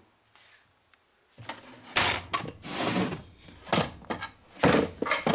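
Wooden boards and box lids being shifted and handled: a series of rough wood-on-wood scrapes and knocks.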